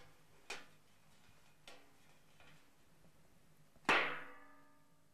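A few light knocks, then about four seconds in one loud strike on a metal oriental tray that rings out and fades over about a second: a foley 'dong' for the tray.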